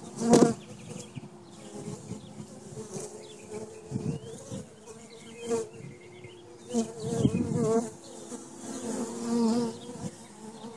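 Honeybees buzzing at the hive entrance as they fly in and out, the buzz swelling louder and fading each time a bee passes close. The loudest pass comes just after the start, with more swells in the second half.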